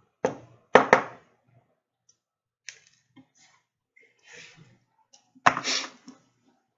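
Sharp clicks and knocks from handling a small coil-wrapping tool as its piece is unscrewed to free a wire coil: a few separate knocks near the start, faint scrapes in the middle, and another louder knock near the end.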